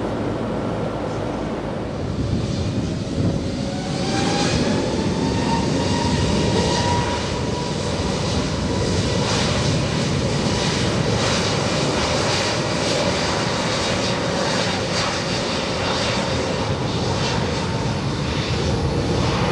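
Aircraft engines running up, with a whine that rises in pitch about two to four seconds in, then holds steady over a loud, even rushing noise.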